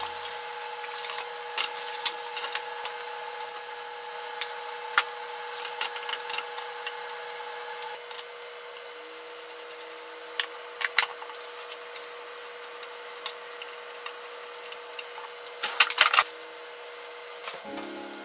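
Kitchen work at the stove: scattered clicks and knocks of utensils and containers over a steady low hum, with dry rice grains poured into an oiled frying pan about halfway through, giving a soft hiss. A cluster of sharp clatter comes near the end.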